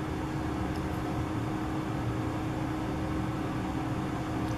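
Steady background hum and hiss with a faint constant tone underneath: room noise with no distinct event.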